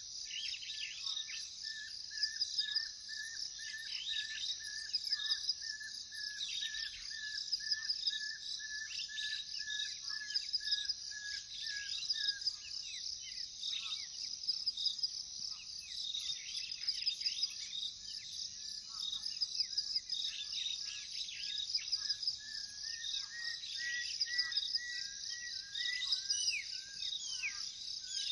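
Night-and-day chorus of crickets and other insects, a steady high pulsing trill, with many short falling bird chirps over it. A run of evenly repeated notes sounds for about the first twelve seconds, stops, and comes back near the end.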